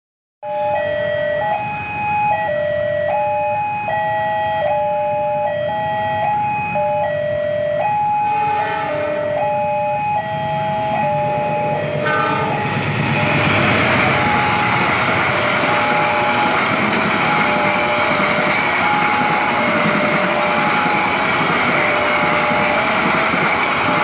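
Level-crossing warning alarm sounding a steady two-tone high-low alternation as a diesel-hauled passenger train approaches. A horn sounds briefly around the middle. From about halfway on, the louder running noise of the passing locomotive and coaches builds and partly covers the alarm.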